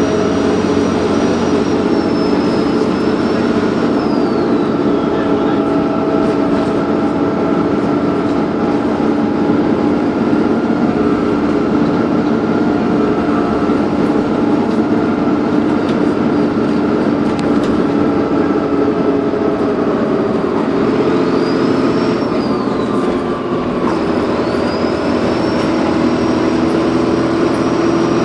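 Dennis Trident 2 bus engine running under load with a high turbo whistle over the engine drone. The whistle falls away a few seconds in, rises and falls briefly later, and comes back steady near the end.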